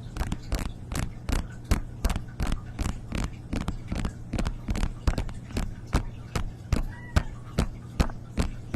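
Close-miked ASMR trigger sounds: sharp clicks or taps at a steady rate of about three a second over a low steady hum.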